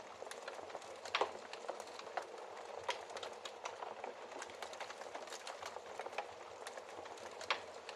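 Wood fire crackling: a steady soft hiss with frequent small crackles, and two louder pops, one about a second in and one near the end.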